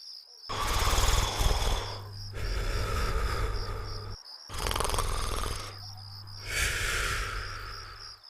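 Cartoon snoring sound effect: two full snores, each a loud rattling in-breath followed by a long, softer breathy out-breath.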